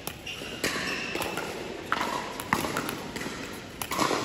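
Plastic pickleball knocking on paddles and bouncing on the hard indoor court between points: about six sharp, irregular knocks that ring on in a large hall.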